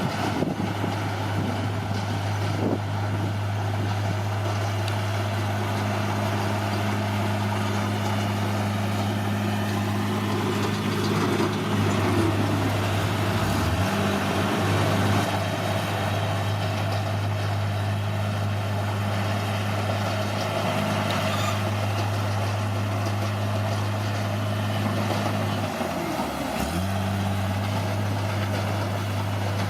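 Bulldozer's diesel engine running steadily under work. Its pitch dips briefly twice, about halfway through and a few seconds before the end, then recovers.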